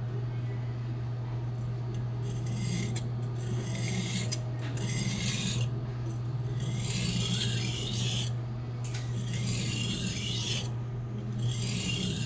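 Kitchen knife of Blue #2 carbon steel being sharpened on a whetstone: a series of long gritty scraping strokes, about six of them, each lasting one to two seconds with short pauses between, over a steady low hum.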